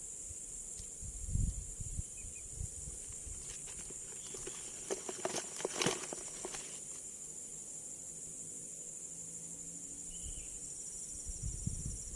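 Steady high-pitched drone of insects, with a few low knocks about a second and a half in and a cluster of rustling and knocking noises between about 3.5 and 6.5 seconds in.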